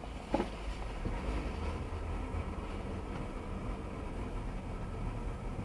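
Steady low rumble of a car's engine and road noise, heard from inside the moving car, with one brief pitched blip about a third of a second in.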